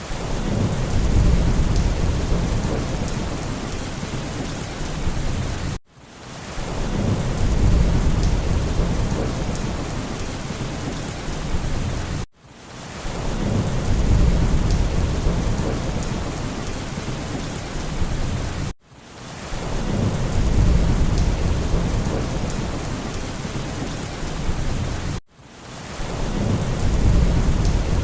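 Steady heavy rain with low rolling thunder, a short recording looped about every six and a half seconds. Each pass swells with a deep rumble a second or two in, eases off, and breaks with a brief dropout before the next starts.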